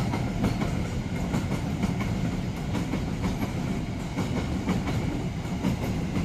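A train passing close by, its wheels clattering over the rail joints with a run of irregular clacks over a steady heavy rumble.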